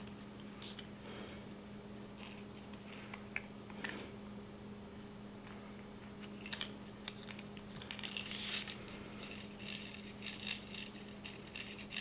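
Small plastic toys being handled on a table: scattered light clicks and taps, becoming busier with rustling in the second half, over a steady low hum.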